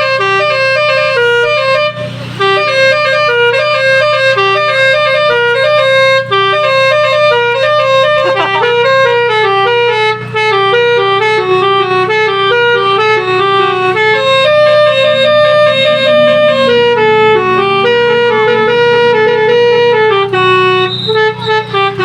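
Car-mounted Basuri telolet multi-tone air horn playing a melody: a continuous tune of held notes stepping up and down, with a steady low hum underneath.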